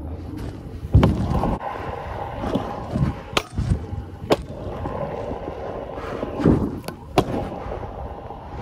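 Stunt scooter wheels rolling over skatepark concrete with a steady rumble, broken by several sharp clacks and heavier thuds as the scooter hits and lands on the ramps and ledges.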